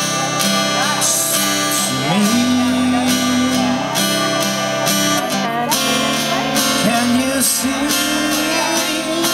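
Acoustic guitar strummed in a slow, even rhythm while a man sings long, held notes of a slow ballad.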